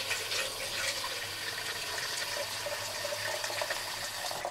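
Kitchen tap running into a plastic measuring jug, a steady stream of water filling it; the flow cuts off right at the end as the tap is shut.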